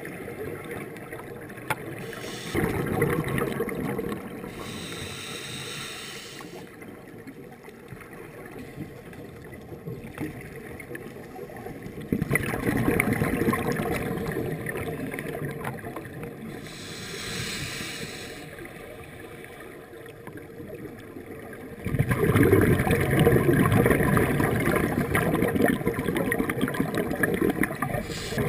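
Scuba diver breathing underwater through a regulator. Short hissing inhalations, about 5 s and 17 s in, alternate with longer gurgling gushes of exhaled bubbles. The loudest exhalation starts about 22 s in and runs on.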